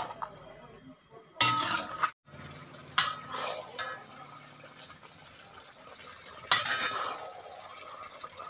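Metal spatula stirring pork curry in a granite-coated wok, scraping and clinking against the pan three times at intervals of a few seconds.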